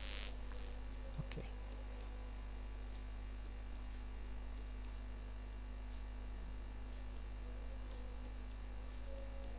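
Steady electrical mains hum from the recording setup, with a short hiss at the very start and a couple of faint ticks about a second in.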